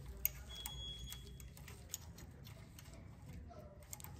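Faint, scattered clicks and ticks of a steel timing chain's links against a camshaft phaser sprocket as it is worked into place by hand, with one sharper click near the start and a low steady hum underneath.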